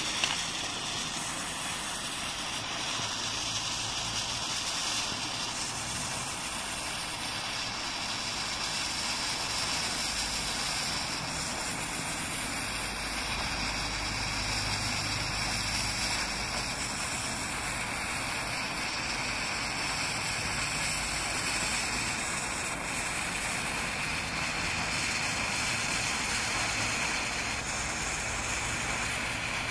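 A 2 mm lacquered green pyrotechnic fuse burning with a steady hiss, unbroken as the burning point creeps along its length, with a faint low rumble underneath.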